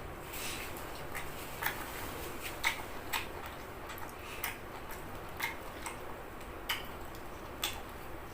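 Wet mouth smacks and clicks of someone chewing steamed squid, coming irregularly about once a second over a faint steady background.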